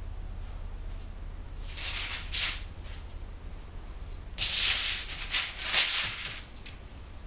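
Newspaper rustling and crinkling as a small dog moves over the sheets, in two bursts: a short one about two seconds in and a longer, louder one around five seconds in. A low steady hum lies under it.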